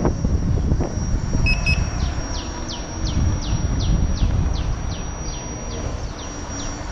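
Wind buffeting the microphone and the electric unicycle rolling over paving, a steady low rumble. From about two seconds in, a high chirp repeats about three times a second, each one falling in pitch, and a brief double beep sounds shortly before it starts.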